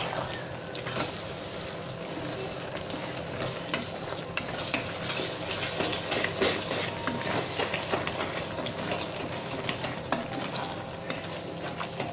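A wooden spatula stirs and scrapes mushrooms and chicken small intestine around a stainless steel pot, with many short scraping strokes, thickest from about four to eight seconds in. Under the stirring the food sizzles steadily as the last of the cooking water cooks off.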